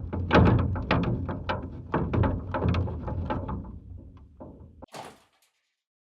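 Factory machinery clanking and banging: a dense run of knocks and thuds that gradually thins out, a short burst of hiss about five seconds in, then it cuts off suddenly.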